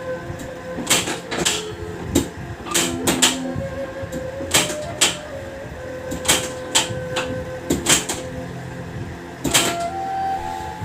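A dozen or so sharp, irregularly spaced clicks and snaps, typical of a chiropractic spinal adjustment, over background music with steady held tones.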